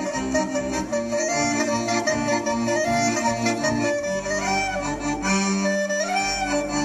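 Live folk music: accordion and clarinet playing a tune together over sustained bass notes, with a couple of sliding notes in the melody in the second half.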